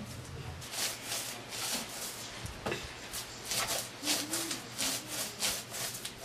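Hands rubbing and pressing wet potter's clay, a series of irregular scraping strokes.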